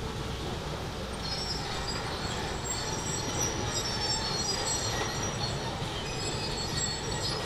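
Hitachi demolition excavator working, its diesel engine rumbling steadily, with high-pitched metallic squealing from about a second in that fades near the end.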